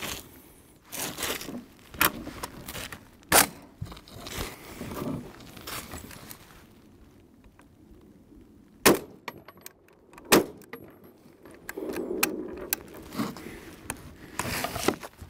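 M1915 Howell automatic rifle, a gas-piston self-loading conversion of a .303 SMLE Lee-Enfield, firing a few single shots. The loudest two come close together near the middle. Between the shots there is metallic clinking and scraping as the rifle is handled.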